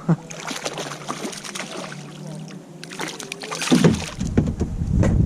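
Water slapping and small knocks around a kayak, with two sharp knocks right at the start. About four seconds in, wind begins buffeting the microphone with a low rumble.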